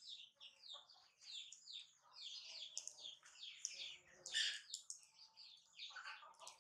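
Small birds chirping in a busy, continuous chatter of quick, high, falling chirps, several a second.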